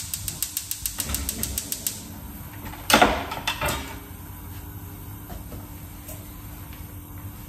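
Gas stove burner's igniter clicking rapidly, about eight clicks a second, for about two seconds as the knob is turned. About three seconds in come two loud, short rushes of noise, followed by a steady low background.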